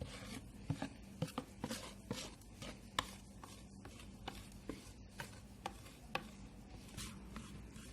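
Thick corn-flour cake batter being scraped out of a mixing bowl into a baking pan: irregular soft scrapes with light knocks of the utensil against the bowl.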